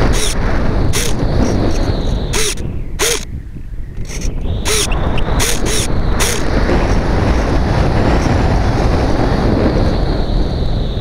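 Loud wind rush from air streaming past the onboard camera of a Phoenix 2000 RC glider in flight. A faint high steady whine runs under it, and several sharp clicks sound in the first six seconds, with a brief drop in the rush about three seconds in.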